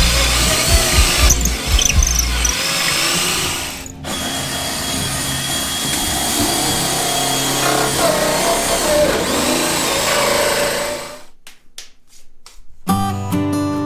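A power tool running steadily for several seconds, then stopping about eleven seconds in, with background music. Guitar music takes over near the end.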